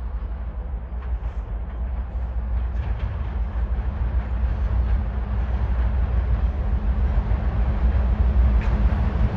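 Diesel train approaching, the low rumble of its locomotives growing steadily louder.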